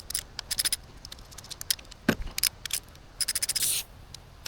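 Hand tools and metal engine parts clinking and scraping as fuel injectors are being removed: scattered sharp clicks, a duller knock about two seconds in, and a short rattling scrape a little past three seconds.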